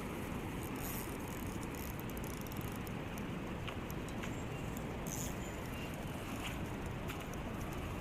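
Steady outdoor rushing noise with a few faint, scattered ticks and chirps.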